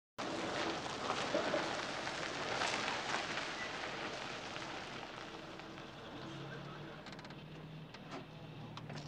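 An old sedan rolling to a stop, its tyres crunching on grit with a hiss that fades over several seconds. Then its engine idles with a low steady hum, and a couple of sharp clicks near the end as a car door is opened.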